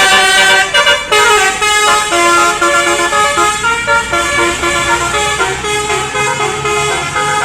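Basuri telolet bus horn playing a quick tune: short held notes, several tones sounding together, changing pitch every fraction of a second. A bus engine hums underneath in the second half.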